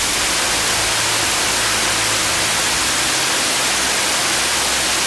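Afterburning turbofan jet engine running at high power on a test stand in an enclosed engine test cell, with its afterburner lit. It makes a steady, dense rush of exhaust noise at all pitches.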